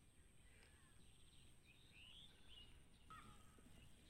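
Near silence with faint bird calls: several short chirps and warbling glides, with a lower call about three seconds in, over a quiet outdoor background.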